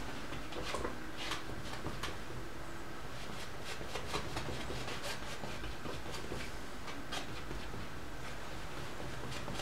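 Oil-paint brush strokes on canvas: a string of short, irregular scrubbing strokes over a steady low background hiss, as paint is blended on the canvas.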